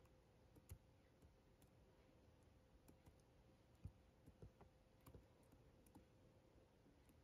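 Faint, irregular clicks from someone using a laptop, over near silence; the loudest click comes about four seconds in.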